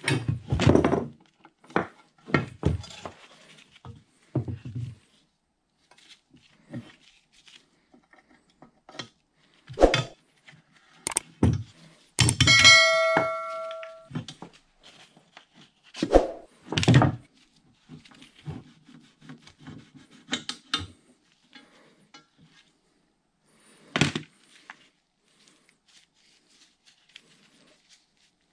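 Ball-peen hammer tapping a punch to drive out the roll pin that holds the cam on a shaft in a Bridgeport variable-speed head's gear housing, in irregular knocks and taps. One impact about 12 seconds in is followed by a clear metallic ring that dies away over a second or so.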